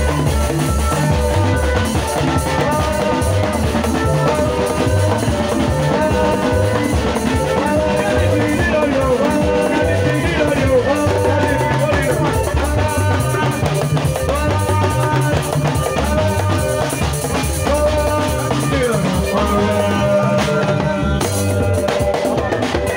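Band music: a drum kit keeping a steady beat under bass and guitar lines.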